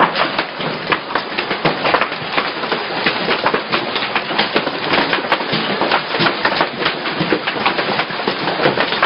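Heavy hail coming down: a loud, unbroken clatter of countless hailstones hitting the ground and patio.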